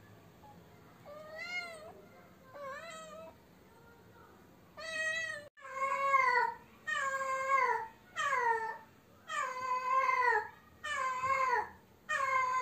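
White domestic cat meowing over and over, calling for a mate. Two faint calls come first, then from about halfway a run of loud calls about one a second, each falling in pitch at its end.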